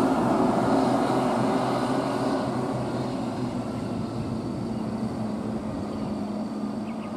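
Engines of a dump truck and a Toyota HiAce minibus driving away around a bend: a steady low engine drone that fades as they move off.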